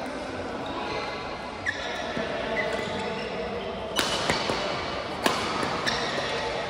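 Badminton rally in an echoing sports hall: several sharp racket-on-shuttlecock hits, the loudest about four and five seconds in, with short shoe squeaks on the court floor.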